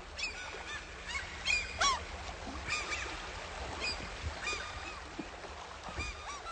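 Waterbirds calling: many short calls that rise and fall, scattered and overlapping, over a steady low hum.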